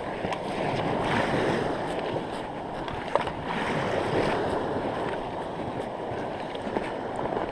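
Small sea waves lapping and water sloshing, with wind on the microphone; a single sharp click about three seconds in.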